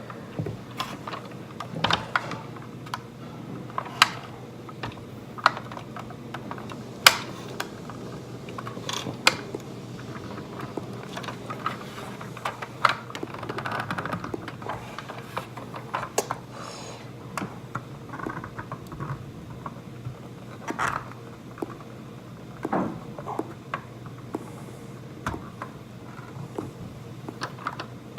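Irregular small clicks and taps of fingers handling a 1:18 scale model car, working at its stiff trunk lid to get it open.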